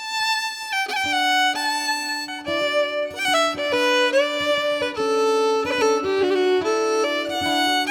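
Background music: a fiddle tune played over a steady held low note, the melody stepping from note to note.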